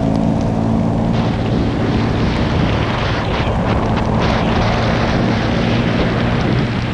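Motorcycle engine running steadily at riding speed on a wet road, with wind noise on the microphone that thickens about a second in and partly covers the engine.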